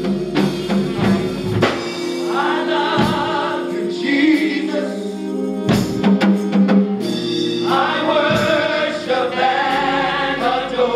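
Gospel choir singing in phrases over a band with drum kit and a steady bass line.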